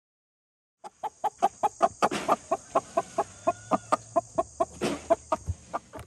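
Chicken clucking in a fast, even series of short calls, about five a second, with two louder squawks about two and five seconds in.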